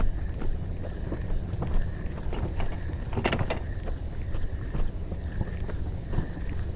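Wind buffeting the microphone and small waves slapping against an inflatable boat's hull, with scattered light knocks and a louder burst of noise about three seconds in.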